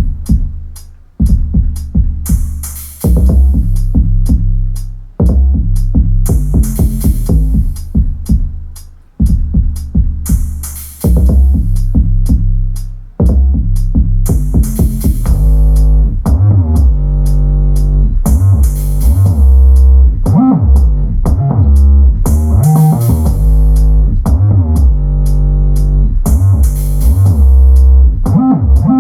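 Electronic dance music with a drum-machine beat and heavy deep bass, played loud through a Klipsch Cinema 400 2.1 soundbar and its subwoofer. The beat breaks off briefly about every two seconds at first, then runs on without breaks from about halfway through, with a fuller bass line.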